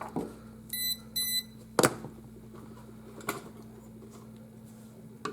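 Two short electronic beeps from a non-contact voltage tester, about half a second apart, followed by a single sharp click.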